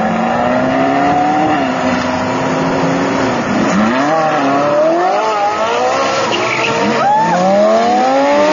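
Supercar engines accelerating hard. From about three and a half seconds in, a Lamborghini Gallardo's V10 pulls away, its pitch climbing in rising sweeps, with a sharp drop at an upshift near seven seconds before it climbs again.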